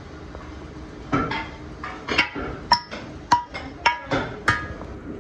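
A hammer striking the inside of a freshly sand-cast metal pump body about eight times, starting about a second in, to break out the sand core. The casting rings briefly after several of the blows, which come about two a second in the second half.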